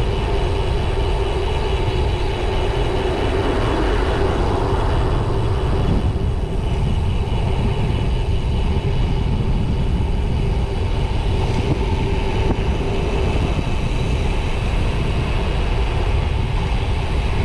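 Wind buffeting the microphone of a bike-mounted camera as a gravel road bike rolls along asphalt, with a steady hum from the tyres on the road surface.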